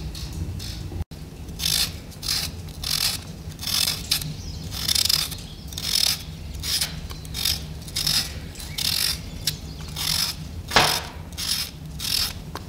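Small serrated knife peeling a raw potato: the blade scrapes off the skin in short repeated strokes, about two a second, over a steady low hum.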